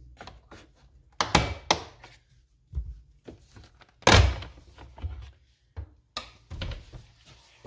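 Plastic retaining clips of a C8 Corvette's instrument cluster cover popping loose as the cover is pried out with a plastic trim tool: a series of sharp pops and knocks, the loudest about four seconds in.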